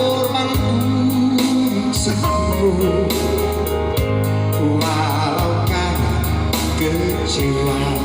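A song with a singing voice over guitar and a steady bass line.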